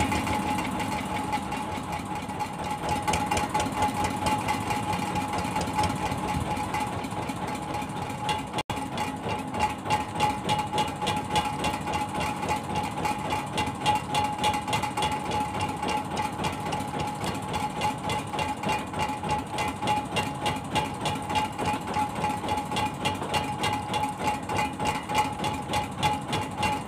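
Fishing boat's engine running steadily at idle, a regular rapid pulsing beat over a steady hum.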